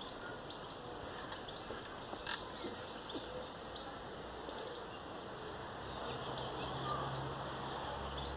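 Quiet garden ambience with faint, scattered birdsong chirps and one faint click about two seconds in. A low steady hum comes in about five seconds in.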